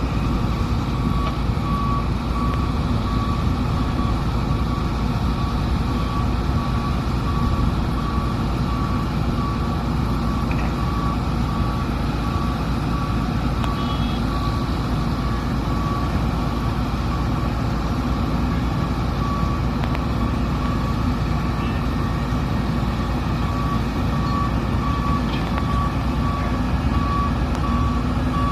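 Heavy diesel engines of an excavator and dump trucks running steadily, with a back-up alarm beeping in a regular pulse that fades in and out and is loudest near the end.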